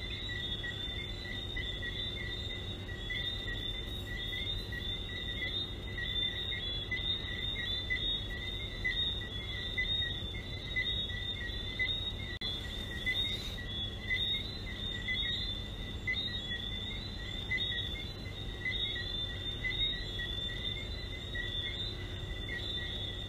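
A chorus of many small frogs calling, their high chirps overlapping into a steady, pulsing din at two high pitches.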